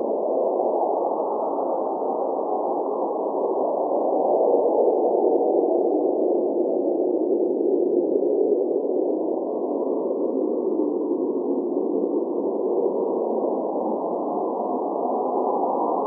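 Blizzard wind blowing steadily: a dull, muffled rush with no high hiss, swelling slightly a few seconds in and easing off again.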